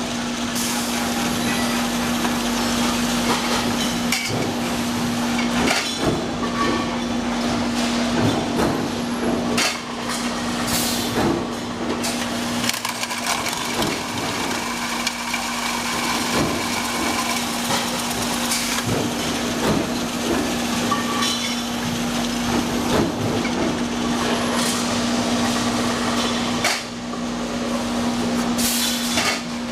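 Steel tube mill production line running: a steady hum under continuous machine noise, with frequent irregular metallic knocks and clanks.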